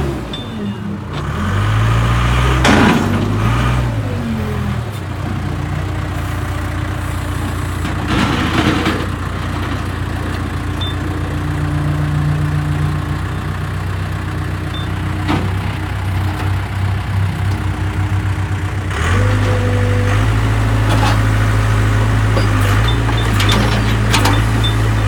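Case 580 Super K backhoe's diesel engine running. Its pitch dips and rises over the first few seconds, then it runs steadily with a few knocks, and about 19 seconds in it steps up to higher revs.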